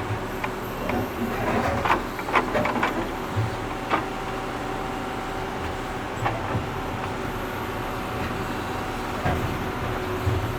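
Tractor engine running steadily while digging, with a steady whine over it and scattered sharp clanks and knocks, several in quick succession about two seconds in and single ones later on.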